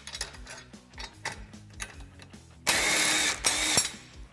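Handheld cordless power tool running in a loud, rough whir for about a second, with a brief break partway, as it spins out a front bumper bolt. Light clicks of the tool and hardware come before it.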